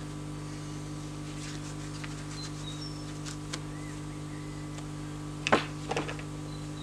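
Tools being handled on a wooden work table: one sharp knock about five and a half seconds in, then a few lighter clatters. Under it a steady low hum and a few short, faint bird chirps.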